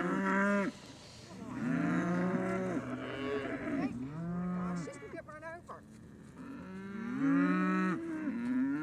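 Murray Grey cows and calves mooing, several overlapping calls one after another.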